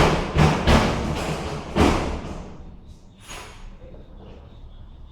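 Four heavy thumps and knocks in the first two seconds, then a quieter stretch with one brief rustle near the middle: a cabinet and its panels being handled and set down during assembly.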